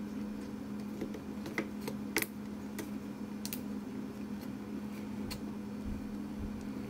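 Small scattered clicks and taps of wires and a plastic wire nut being handled and twisted against a dishwasher's sheet-metal junction box, with the sharpest clicks about two seconds in. A steady low hum runs underneath.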